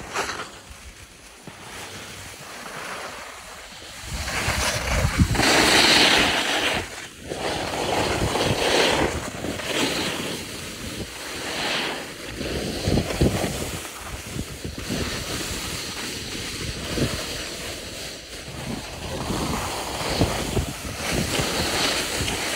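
Skis hissing and scraping over snow on a downhill run, with wind rushing on the microphone. The noise swells and fades every second or two, loudest about five seconds in.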